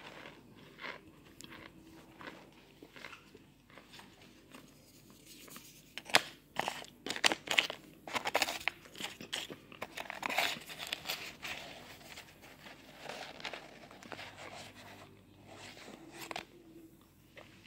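Packed cornstarch baby powder chunks crunching and crumbling with dry, squeaky crackles in an irregular run, thickest and loudest through the middle.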